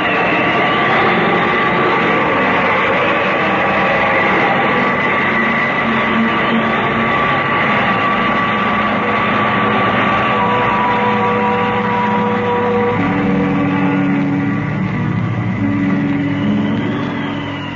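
Radio-drama sound effect of the time machine travelling back through time: a loud, steady electronic noise with several held tones. Lower tones join in about thirteen seconds in.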